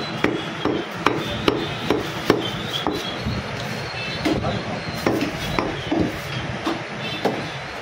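Broad butcher's knife chopping boneless mutton into pieces on a wooden chopping block, with the blade knocking on the wood about two to three times a second.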